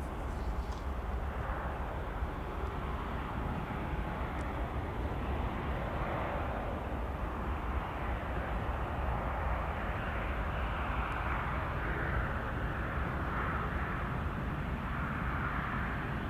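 Airbus A380-861's four Engine Alliance GP7270 turbofans running steadily at low taxi power, heard from a distance as an even rumble and hiss that swells slightly in the second half.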